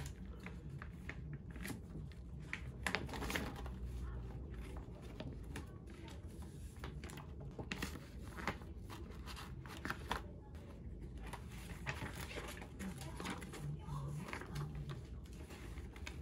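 Plastic laminating sheets crinkling and rustling as they are handled and slid into an envelope: soft, irregular rustles throughout.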